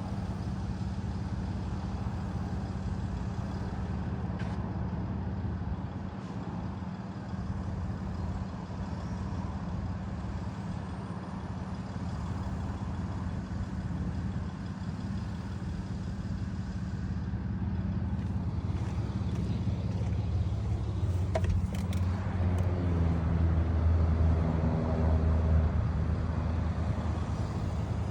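2018 Ford F-150 engine running steadily, growing louder with a higher note from about twenty seconds in, with a short click partway through that rise. It is recorded to show a timing chain rattle.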